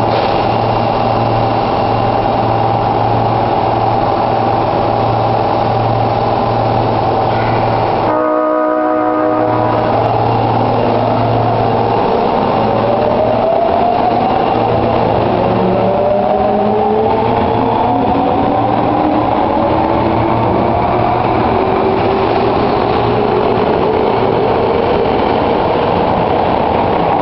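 Osaka subway Tanimachi Line 22-series train standing with a steady hum, then about eight seconds in it sounds its horn once, a short buzzy tone of about a second and a half; this set's horn is known for its abnormal sound. After the horn, the traction motors' whine rises steadily in pitch as the train pulls away.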